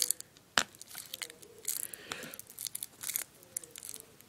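Irregular crunching, tearing and crackling of a broken-open Piccolo Pete firework's cardboard tube as the powder is picked out by hand, with a sharp tap about half a second in.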